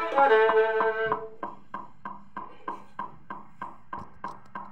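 Violin playing the end of a phrase over a steadily clicking metronome; the last note is held and stops about a second and a half in. After that the metronome clicks on alone, about three clicks a second.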